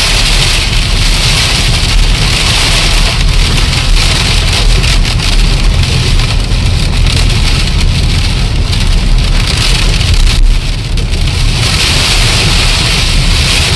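Wind-driven snow pellets (graupel) pattering steadily on a surface, over a heavy low wind rumble. The hiss thins briefly about ten and a half seconds in, then picks up again.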